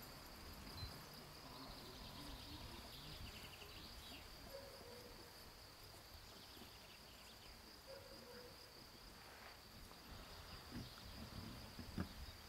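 Faint, steady high-pitched insect trilling, with a brief soft thump near the end.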